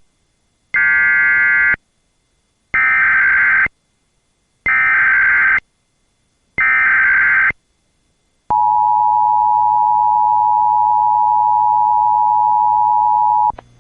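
Emergency Alert System tones on a radio broadcast, announcing a child abduction emergency alert. Four data bursts of about a second each, roughly two seconds apart, are followed by the steady two-tone attention signal, which holds for about five seconds and cuts off suddenly.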